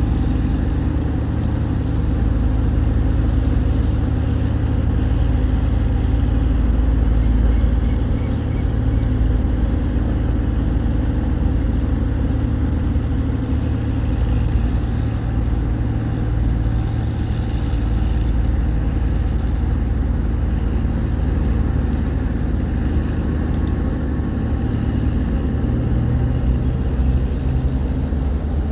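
Tugboat engine running steadily under load, a deep even hum, as it tows cargo barges upstream against the current.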